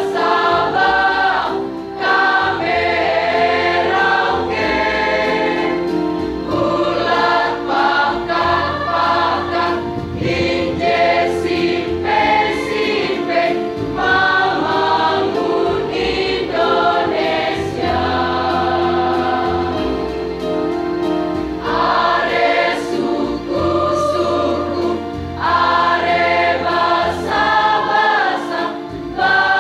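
High school choir singing a song in held, sustained phrases, with an electronic keyboard playing along underneath.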